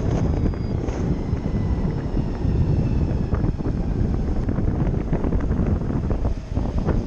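A car driving along a road: steady, loud low rumble of road and wind noise.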